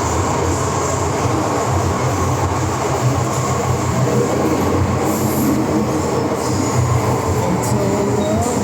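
Steady running noise inside an MTR M-train car travelling through the Island Line tunnel, a low, even rumble from the wheels and running gear.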